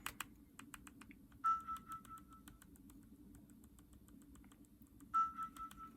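Small, sharp plastic clicks and taps from handling a Nintendo DS Lite during repair, with two short electronic beeps, one about a second and a half in and one about five seconds in.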